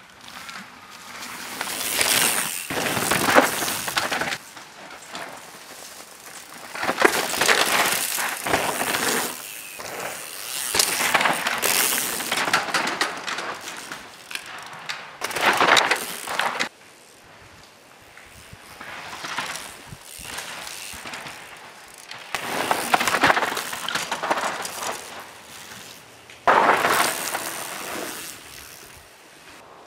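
Mountain bike ridden past several times on a loose, dusty dirt trail: knobby tyres skidding and crunching through dirt and gravel. Each pass swells and fades over a second or two.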